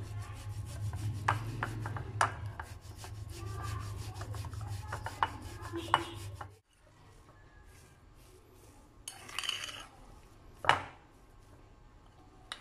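Boiled potato rubbed down a stainless steel box grater, a run of rasping strokes with sharp clicks that stops abruptly after about six and a half seconds. After that it is quieter, with a short rustle and one sharp knock.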